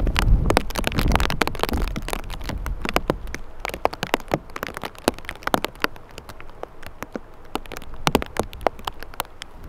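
Raindrops striking close to the microphone in many sharp, irregular ticks, with wind buffeting the microphone as a low rumble, strongest in the first two seconds.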